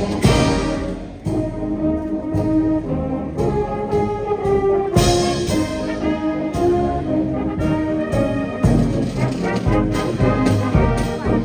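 High school marching band playing a march: brass and saxophones holding pitched chords and melody over a steady drum beat.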